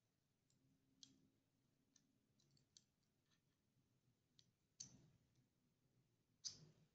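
Faint scattered clicks and light knocks from a metal mini HVLP spray gun being handled and turned over in the hand, with two louder dull knocks in the second half.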